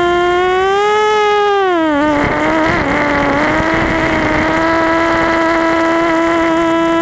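Quadcopter's brushless motors and propellers whining, heard from the onboard camera. The pitch rises a little about a second in, then drops sharply with a rush of noise as the throttle changes, and settles back to a steady whine.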